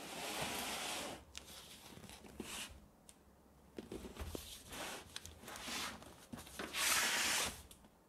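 A cardboard box being handled, slid and turned over on a cutting mat: rustling and scraping, a longer scrape at the start and a louder one near the end, with small knocks between.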